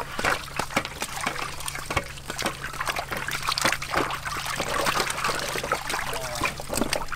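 Water splashing, sloshing and trickling as peeled wood apples are rinsed by hand in a metal basin and lifted, dripping, into a plastic basket, with many irregular small splashes.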